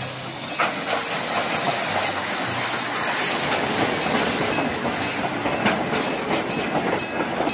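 Steam train passing close by: a steady hiss of steam and the rumble of passenger coaches rolling past, with scattered wheel clicks over the rail joints.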